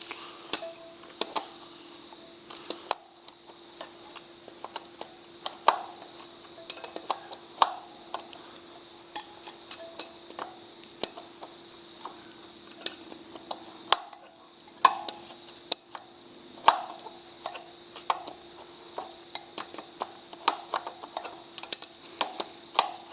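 Adjustable spanner working a rusty nut off a motorcycle tyre's valve stem: many irregular, sharp metal clicks and clinks as the spanner is repositioned and turned.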